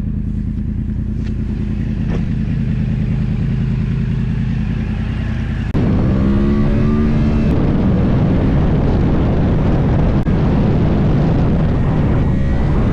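Yamaha R1 inline-four sport motorcycle engine running steadily at low revs, then opening up suddenly about six seconds in and revving up as the bike accelerates hard. It settles into a loud, even rush at speed.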